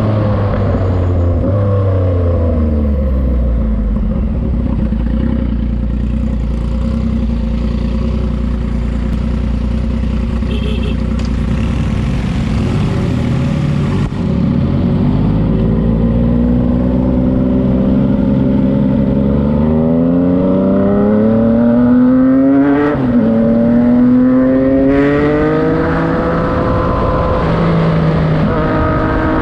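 Yamaha MT-09's three-cylinder engine through a Racefit Slash exhaust, under way: the note drops off at the start, holds low and steady, then climbs over several seconds as the bike accelerates. About two-thirds through there is a brief break in the note, like a gear change, before it climbs again and eases off near the end.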